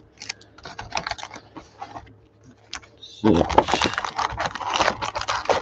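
Foil trading-card packs crinkling and clicking against each other and the cardboard as they are pulled out of a Panini Prizm hobby box, growing denser and louder about three seconds in.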